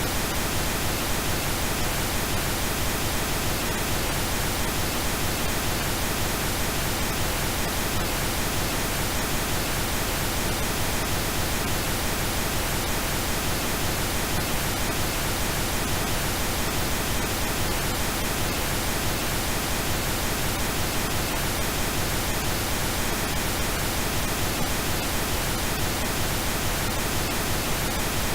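Computer-generated pink noise: a steady, even hiss across the whole range of pitch.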